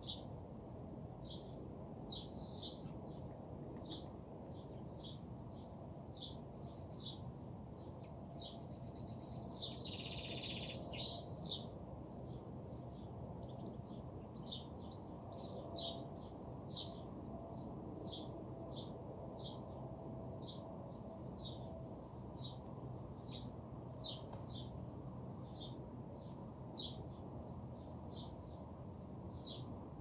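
House sparrows chirping: a repeated single cheep about once or twice a second, with a brief burst of busier twittering about ten seconds in, over a steady low background rumble.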